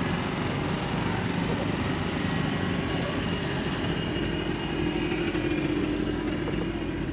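A motor vehicle engine running over a steady outdoor rumble, with a clearer engine hum coming in about four seconds in.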